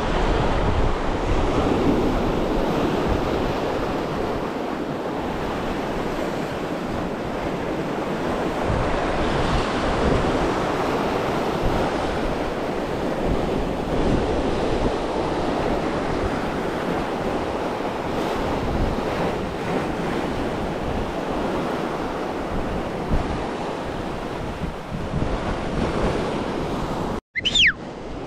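Waves washing on the shore, with wind noise on the microphone, as a steady rushing noise. Near the end the sound cuts out abruptly and a short high sliding tone is heard.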